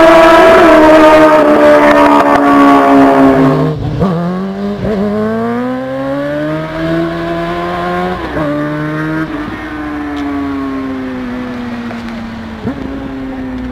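Motorcycle engines at high revs. First a steady high-pitched run that cuts off about four seconds in, then another motorcycle accelerating hard through the gears, its pitch climbing with short breaks at the shifts, then slowly falling as it goes past and away.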